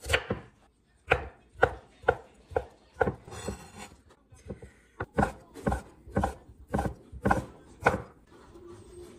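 Chef's knife chopping on a wooden cutting board, sharp knocks about two a second: first cutting through raw potato, then, after a short pause, slicing a sausage into rounds.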